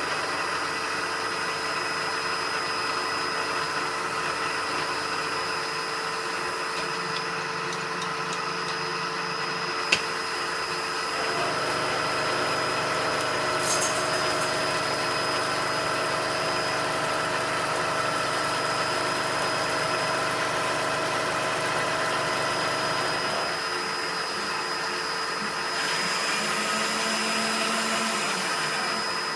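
Lance metal lathe running at about 1500 RPM while turning a part, a steady machine whine with several constant tones. A lower hum joins about a third of the way in and drops out again about two thirds of the way through, with a single sharp click shortly before it starts.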